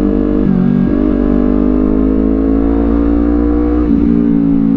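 Honda CBR250RR's parallel-twin engine through a Villan Z2 carbon aftermarket exhaust, under way: the engine note rises steadily as the bike accelerates, dropping in pitch with an upshift about half a second in and again near four seconds in.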